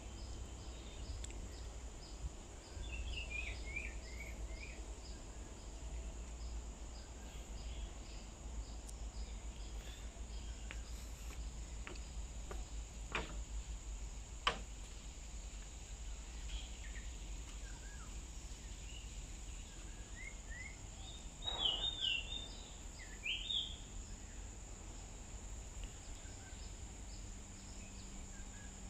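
Outdoor ambience of scattered short bird chirps over a steady high insect drone and a low rumble. There are a couple of sharp clicks near the middle and a louder cluster of calls a little past two-thirds of the way through.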